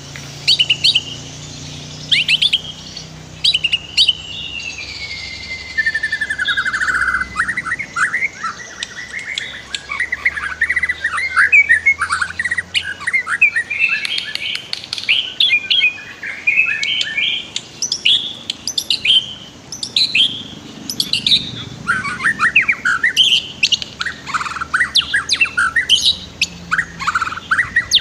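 White-rumped shama singing a long, varied run of rapid whistled notes, trills and chirps, with a long falling whistle a few seconds in.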